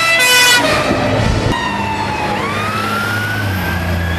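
Fire engine siren sounding as the appliance passes: a blaring pitched blast at the start, then a wail whose pitch rises slowly through the second half. The fire engine's engine runs underneath.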